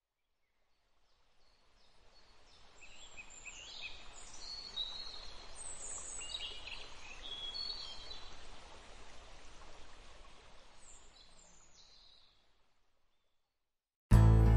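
Outdoor nature ambience: many small birds chirping and calling over a steady rushing hiss, fading in and then fading out. Music starts suddenly near the end.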